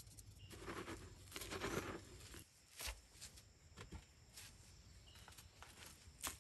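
Quiet handling sounds: soft rustling and scraping of a hand stirring through fine grey powder in a clay pot, then a few light clicks and taps.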